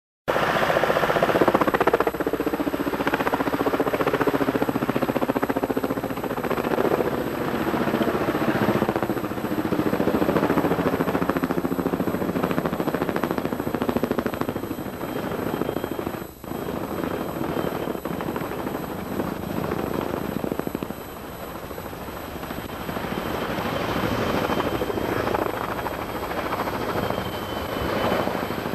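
Helicopter's rotor and engine running steadily and close, with a fine rapid pulsing throughout and a faint high whine in the second half. The sound drops out sharply for a moment about sixteen seconds in.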